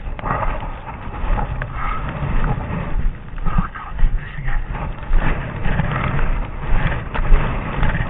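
Wind buffeting the microphone in a snowstorm, a loud rumbling that gusts up and down, with the crunch of footsteps in snow.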